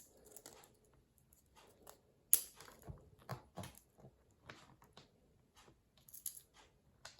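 Faint, scattered clicks and taps of a pocket knife and its small bolt being handled, with one sharper click a little over two seconds in.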